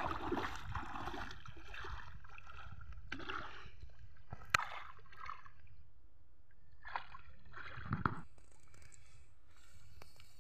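Shallow river water sloshing and splashing as a person wades in and moves his hands through it, in several separate bursts. There is a single sharp click about halfway through.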